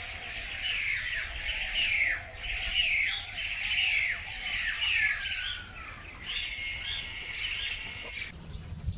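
Baya weavers chattering: many quick, overlapping chirps that sweep downward, breaking off abruptly near the end.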